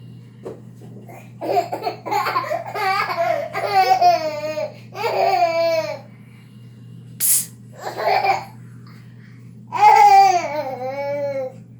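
A girl laughing in several long bursts, the pitch wavering up and down, with two short hissy bursts in between. A steady low hum runs underneath.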